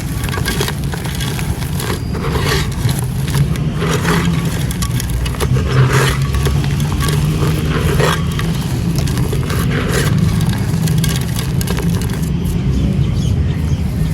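Dry, gritty crumbling material being crushed and scraped, with irregular crunches and crackles over a steady low rumble, busiest in the middle.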